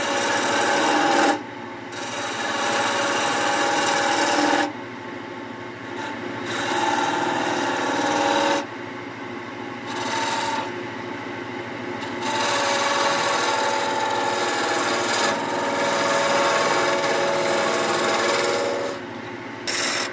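Gouge cutting a spinning fir spindle on a wood lathe: a rough scraping hiss of wood being peeled off in several long passes, with short breaks between them, over a steady low hum.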